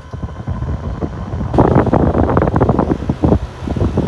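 LG 6000 BTU air conditioner running with its fan on high, its airflow blowing on the microphone as a low rumble. There is a louder, rougher patch of wind buffeting from about a second and a half in until near the end.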